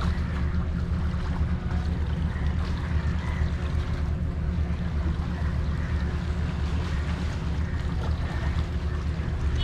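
Steady low rumble with a faint hiss over it, unchanging throughout.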